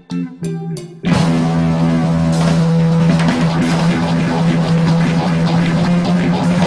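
Background music: a few plucked guitar notes, then about a second in a loud rock band with drums and guitar comes in and plays on steadily.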